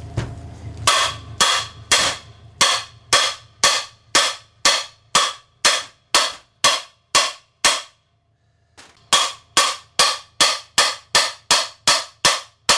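Hammer blows on a lawn mower engine's oil pan, struck to knock the stuck pan loose, about two sharp ringing strikes a second with a brief pause partway through. This hammering is what ended up cracking the pan.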